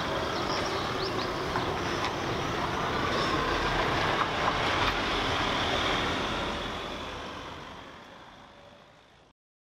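Street traffic: cars driving slowly along a street, a steady mix of engines and tyre noise that fades out over the last few seconds.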